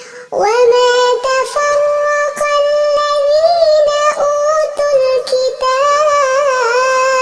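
Melodic Quran recitation: one high-pitched voice drawing out long notes with wavering, ornamented pitch, pausing briefly for breath a few times.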